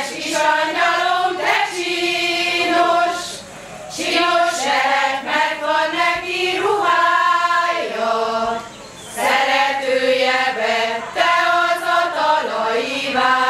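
A group of women singing a Hungarian folk song together, without accompaniment, in long held phrases with brief pauses for breath about three and a half and eight and a half seconds in.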